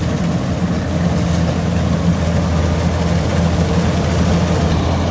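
Kubota DC-105X rice combine harvester running steadily while cutting and threshing rice, a constant low engine hum with machine noise over it.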